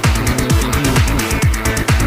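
Electronic dance music with a fast, steady kick drum, about four beats a second, and ticking hi-hats.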